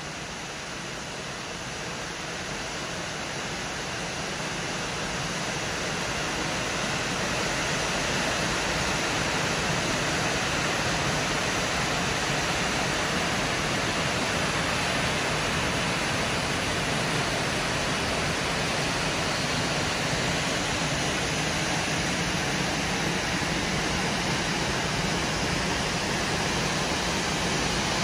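Steady rush of water from a large waterfall falling down a granite cliff face, growing louder over the first several seconds and then holding steady.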